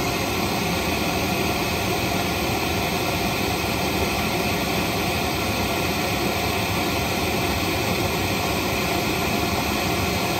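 Pink noise test signal playing steadily from a small Sony three-way bookshelf speaker, an even, unbroken rushing hiss across all pitches, used to measure sound level at a listening seat.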